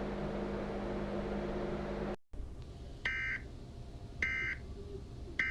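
A steady low electrical hum cuts off about two seconds in. It is followed by three short electronic data bursts, each made of two high tones, about a second apart. These are the Emergency Alert System end-of-message tones that close an alert.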